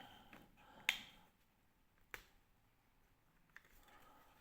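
Faint handling of small 3D-printed plastic parts, with two sharp clicks a little over a second apart and light rustling near the end.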